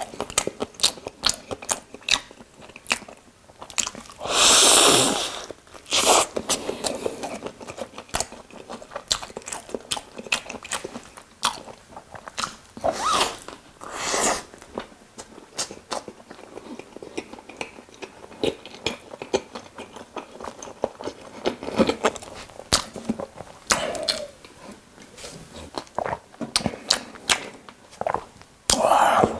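Close-miked chewing and biting of a toasted Korean street-toast sandwich, with many crisp crunches and wet mouth sounds. A few louder bites stand out now and then.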